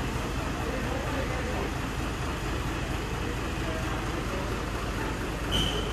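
A motor vehicle driving on the road: steady engine rumble and road noise. A short high beep comes near the end.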